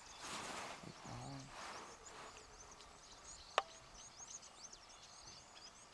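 Faint, high-pitched chirping of small birds, many short calls in quick succession, with a single sharp click about three and a half seconds in.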